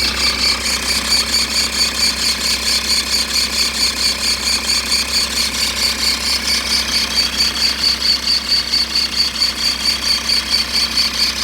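Audi A6 C4's 2.5 TDI five-cylinder diesel idling, with a high-pitched squeak pulsing rapidly and evenly over it. The squeak comes from a roller or bearing, which the owner cannot yet pin down.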